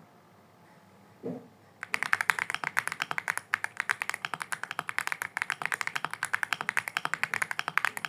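Computer keyboard typed on rapidly, a quick run of key clacks starting about two seconds in; the keys sound thick and stuck.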